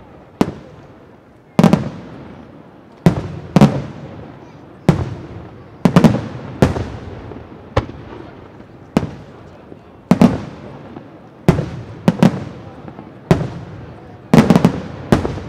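Aerial firework shells bursting in a steady series, a sharp boom about every second, each dying away in an echo, with several bursts bunched together near the end.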